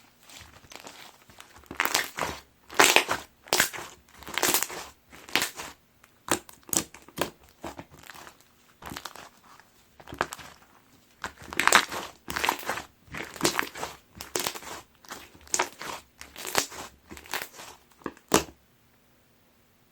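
Soda jelly slime being squeezed and stretched by hand, making a string of crackly, squishy pops about twice a second that stop suddenly near the end.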